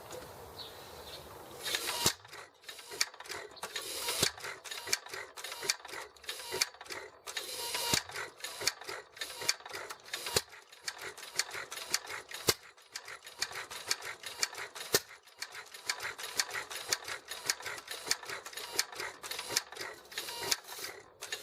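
Antique Sattley hit-and-miss farm engine being turned over while trying to start, flooded with too much fuel. About two seconds in, rapid irregular mechanical clicking and clattering begins, with sharper knocks every couple of seconds.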